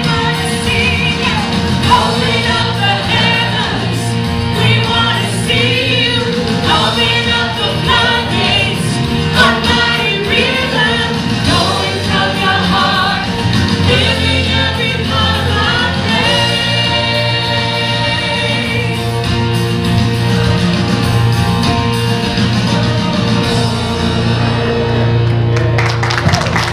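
Congregational worship song sung by a small mixed-voice praise team into microphones over steady held chords from the accompaniment. The singing gives way after about twenty seconds to a sustained closing chord, and applause starts just at the end.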